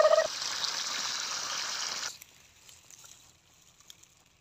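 Irrigation water pouring from a pump's outlet pipe, a steady rushing that cuts off about two seconds in. At the very start, the tail of a steady high tone ends.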